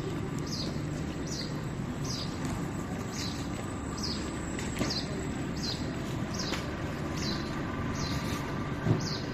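A small bird repeating a short, high, falling chirp about every three-quarters of a second, over a steady low rumble of street noise.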